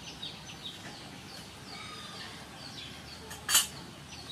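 Birds chirping steadily, short high falling notes about three a second, with one sharp clink of crockery set down about three and a half seconds in.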